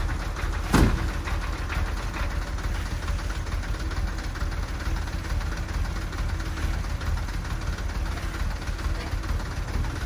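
A sand-hauling dump truck's diesel engine running steadily with a low rumble. There is one sharp, loud thump about a second in.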